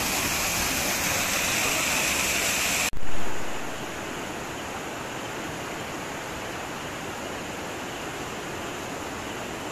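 Small waterfall splashing onto rocks at close range: a steady, bright hiss. About three seconds in it cuts off, with a brief loud burst, to the steady lower rush of a fast-flowing river.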